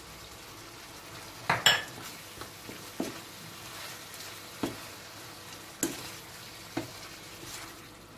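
Chopped vegetables and herbs sizzling as they sweat in a pan, stirred with a utensil that knocks and scrapes against the pan every second or so.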